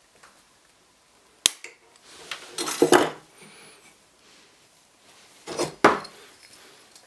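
Metal shears snip silver wire with one sharp click, then small silver pieces and hand tools clink and rattle as they are handled on a wooden bench pin, in two bursts, the second near the end.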